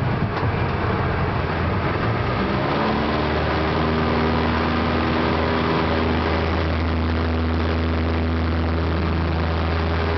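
Piper Tomahawk's four-cylinder Lycoming O-235 engine and propeller heard from inside the cockpit during the landing rollout. The first few seconds are rougher and noisier; about three seconds in, the engine settles into a steady idle with an even low hum.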